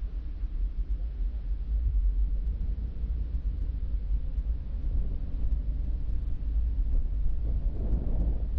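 A car driving: a steady low rumble of road and engine noise picked up by a dashcam, with a short swell of louder noise near the end.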